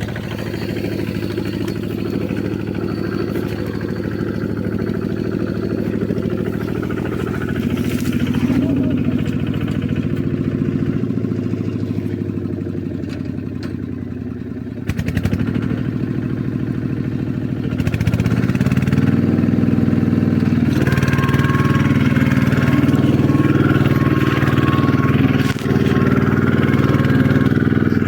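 An engine running steadily, which then speeds up and gets louder about two-thirds of the way through and keeps running at the higher speed.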